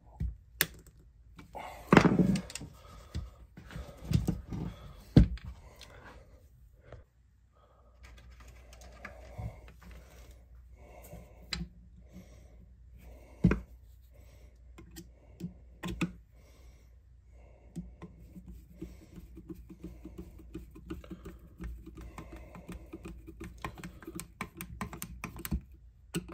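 A hand screwdriver driving screws into the brass fittings of a wooden rifle stock: small scattered clicks and scrapes of the blade in the screw heads. A few louder knocks come in the first five seconds, and a couple more about halfway.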